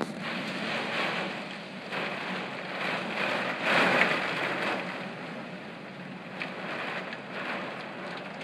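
Heavy thunderstorm rain and gusting wind driving against window glass, rising and falling in surges, with the strongest surge about four seconds in.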